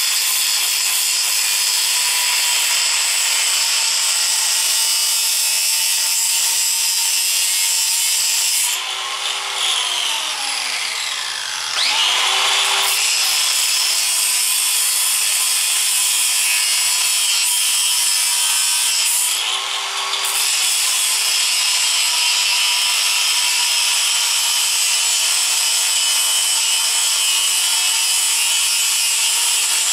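Angle grinder grinding into steel, a steady high whine with a harsh scraping edge. About nine seconds in, its pitch sags and then climbs back up, and it dips briefly again around twenty seconds in.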